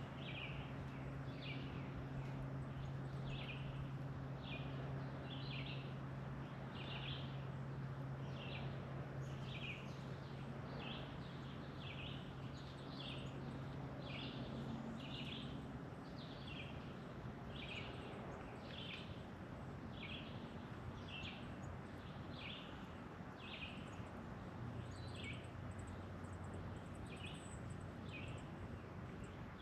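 A bird repeating a short high chirp, about one a second, steadily throughout, over a faint low steady hum.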